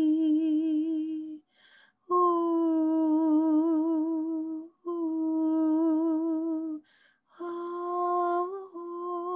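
A woman humming long, devotional held notes on one steady pitch with a gentle wavering vibrato: four notes of about two seconds each, with short breaths taken between them and a small step up in pitch near the end.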